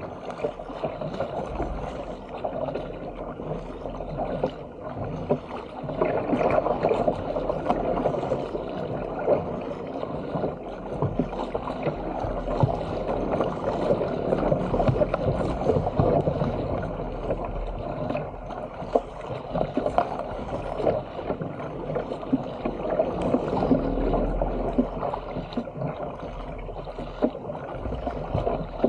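Water rushing and splashing along the hull of a Stealth 457 fishing ski paddled at sea, with paddle blades dipping and spray spattering in a steady, uneven wash.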